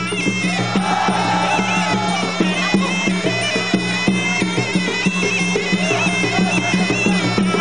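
Traditional Cambodian boxing music: a sralai oboe playing a wavering melody over quick, steady beats on skor yaul drums.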